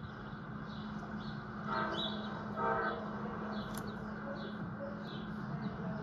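Two short blasts of a model train's horn sound, the second following about a second after the first, over a steady low hum.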